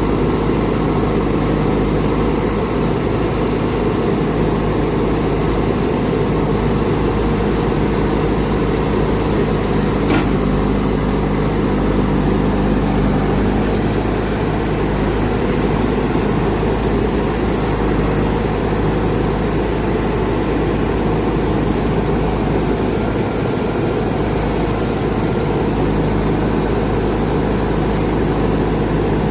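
Backhoe loader's diesel engine running steadily, with a single sharp knock about a third of the way through.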